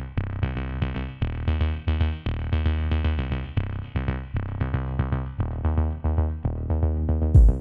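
Electronic background music: synthesizer notes struck in a steady rhythm over a deep pulsing bass.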